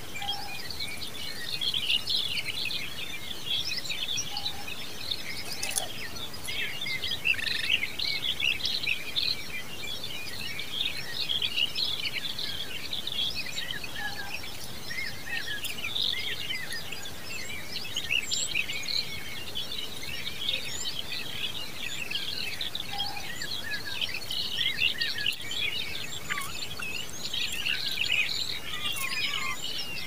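Many small birds chirping continuously, with short high calls overlapping one another and no pause.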